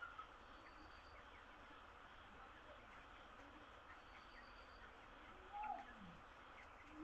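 Broiler chicks faintly peeping and cheeping, with one louder, wavering call a little past halfway. A faint high trill repeats every few seconds.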